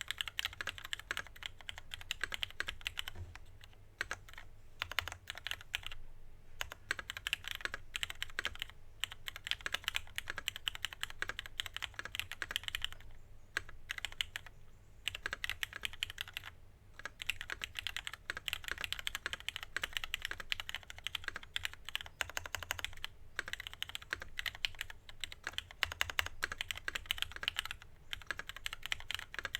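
Fast continuous typing on a KMG TKL mechanical keyboard with lubed and filmed Hyperglide Black linear switches, an aluminium plate and JTK Emerald keycaps: rapid keystroke clacks with brief pauses now and then.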